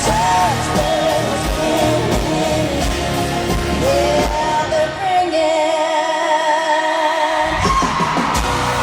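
Live pop-country band with a woman singing, recorded in a large arena. About five seconds in, the drums and bass drop out for a couple of seconds, leaving long wavering held notes, and then the full band comes back in.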